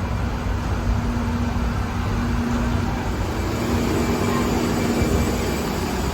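Steady low mechanical rumble with a faint steady hum, like aircraft or airport ground machinery heard during boarding.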